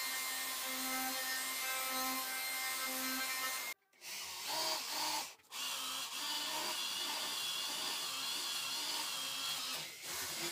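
Handheld electric router running steadily, cutting a groove in a plywood disc. After a break about four seconds in, an electric drill runs with a high whine, boring into the plywood.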